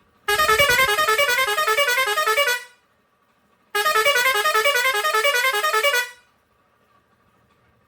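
Pioneairs 632S digital air horn, a six-trumpet steel truck horn, playing a quick tune of rapidly stepping notes. It sounds twice, each blast about two seconds long, with a second's pause between them.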